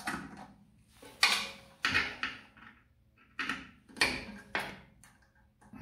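A hand tool working the motor mounting bolts on a band saw's steel frame, making about seven sharp clanks and clicks at uneven intervals as the bolts are loosened.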